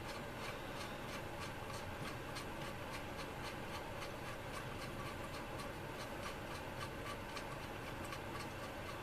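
Faint, steady, regular ticking, about two ticks a second, over a low background hum.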